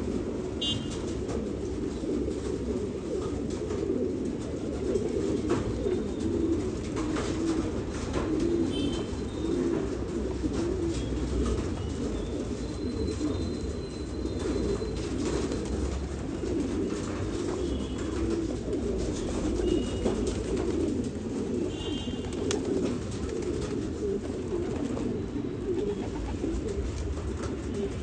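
A flock of domestic pigeons cooing, many low coos overlapping without a break, with a few short high chirps now and then.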